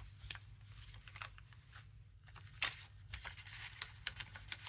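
Paper cards being handled and slid into paper pockets: scattered rustles and light taps, with one sharper paper snap about two and a half seconds in, over a low steady hum.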